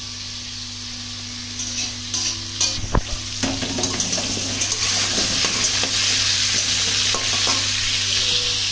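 Sliced onions and potatoes frying in oil in metal karahis, stirred with a metal spatula. Clinks and knocks of the spatula against the pan come about two to three seconds in, then the sizzle grows louder and holds steady.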